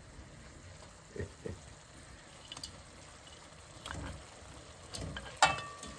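A cooking pot simmering quietly, with a few light knocks of cookware and one sharp, ringing metal clink about five and a half seconds in.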